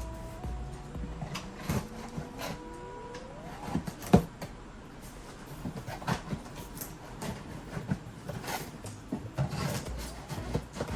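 A cardboard shipping box being opened and handled: rustling and scraping, with scattered knocks and one sharp knock about four seconds in.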